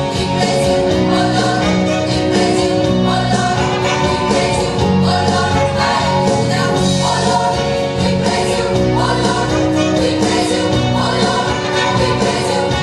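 A large mixed gospel choir of men and women singing sustained chords together, with instrumental accompaniment.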